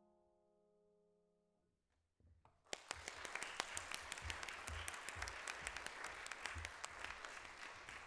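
August Förster grand piano's final chord dying away over the first two seconds, then an audience clapping, with applause starting about three seconds in and continuing steadily.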